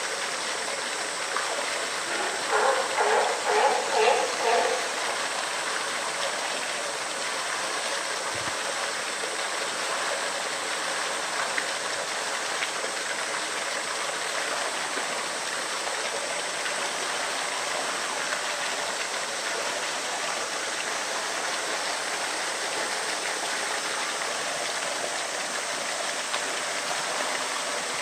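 Steady rushing of running water. A person's voice is heard briefly about three seconds in.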